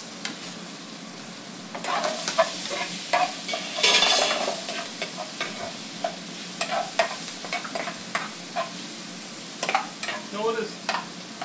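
Onions and mushrooms sizzling in oil in a frying pan while a metal spoon stirs them, knocking and scraping against the pan. About four seconds in, the hiss surges louder for a moment.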